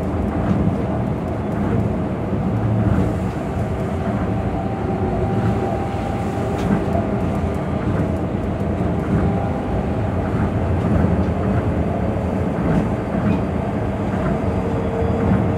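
Tokyo Monorail 2000 series train running, heard from inside the car: a steady running noise with faint steady tones in it and occasional light ticks.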